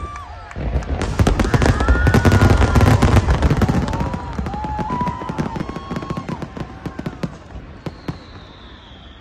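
Fireworks display: a dense salvo of aerial shell bursts, booming with a deep rumble and crackling, loudest in the first few seconds, then thinning out to scattered pops near the end.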